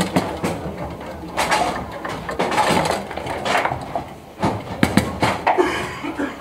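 Foosball table in fast play: a quick, irregular run of sharp clacks and knocks as the ball and the players' plastic figures and rods strike, with a denser burst of knocks about five seconds in.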